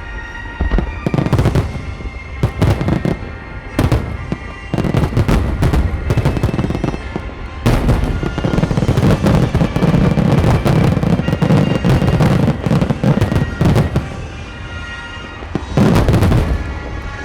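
Aerial fireworks bursting in rapid succession, with booms and crackling that thicken into a dense barrage from about eight to fourteen seconds in. Music plays underneath.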